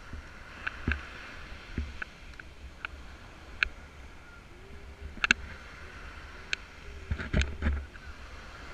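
Muffled low rumble of wind and surf on a hand-held camera's microphone, with scattered sharp clicks and a few knocks from the camera being handled, heaviest about seven seconds in.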